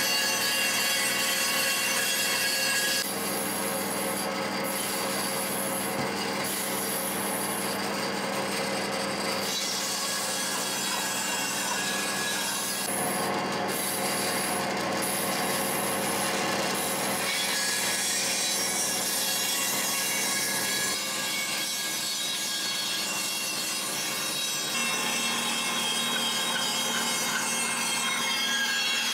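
Bandsaw running and cutting thick wooden boards: a steady sawing noise whose tone changes abruptly every few seconds as one cut follows another.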